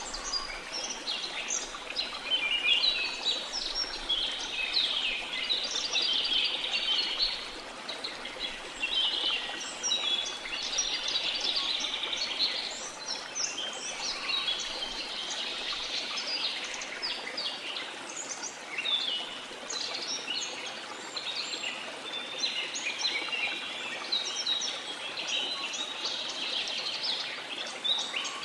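Many small birds chirping, short high calls overlapping one another without a break, over a faint steady hiss.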